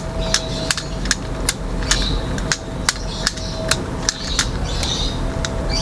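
Cold Steel FGX balisong being flipped through a continuous twirl loop, its handles clicking and tapping together about two to three times a second in an even rhythm, with soft swishes as it swings.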